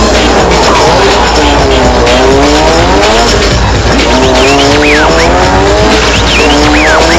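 Race car engine revving up and falling back again and again, with tyres squealing in short high chirps, as in drifting.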